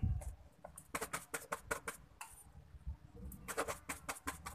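Light clicks and scrapes of plastic paint tins, lids and a brush being handled on a worktable, in two bursts: about a second in and again near the end.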